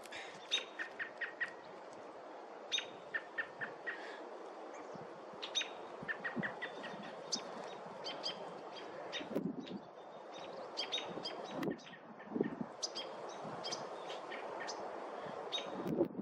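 A bird chirping in repeated runs of short, quick notes, several notes to a run.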